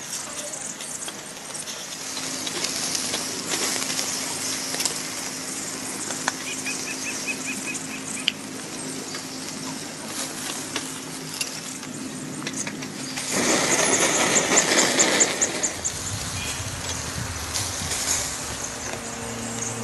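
Steak sizzling and crackling on a hot grill grate. The sizzle grows louder for a few seconds about two-thirds of the way through.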